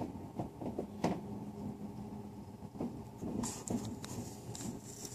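Phone-microphone handling noise: a few soft knocks and low rumbling, turning to a hissy rustle in the second half as the phone and the person holding it move.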